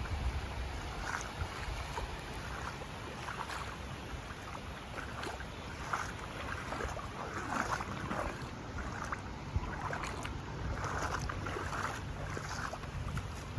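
Small waves lapping and washing over shallow water on a sandy tidal flat, with wind rumbling on the microphone.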